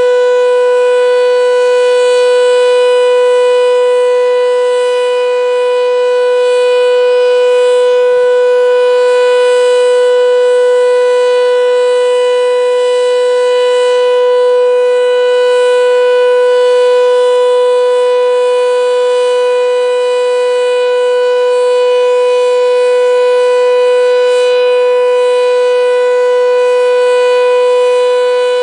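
Sentry 7V8-B outdoor warning siren sounding its steady alert tone: one held pitch with overtones, loud, swelling gently in volume.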